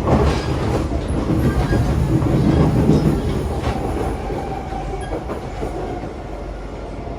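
Siemens C651 metro train running between stations, heard inside the passenger car: a steady heavy rumble of wheels on rail with a few sharp clicks and a faint steady whine, easing slightly in the second half.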